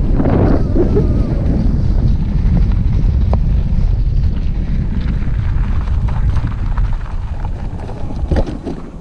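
Wind buffeting the microphone: a loud, continuous low rumble that eases in the last couple of seconds, with a few faint clicks.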